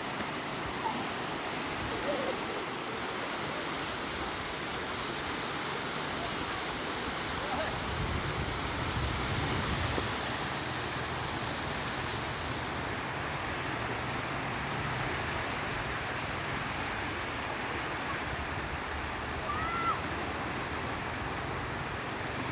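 Steady rush of sea surf, with a few faint short chirps and a low rumble about eight to ten seconds in.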